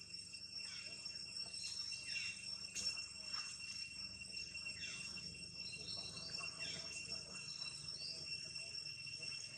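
Steady high-pitched insect drone, with repeated short calls that fall in pitch.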